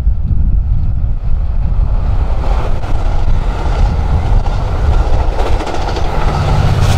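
Amtrak Pacific Surfliner train passing close by, its wheels rumbling and clacking on the rails, louder from about two and a half seconds in. Near the end the F59PHI diesel locomotive pushing at the rear goes by, and its steady engine drone joins the wheel noise.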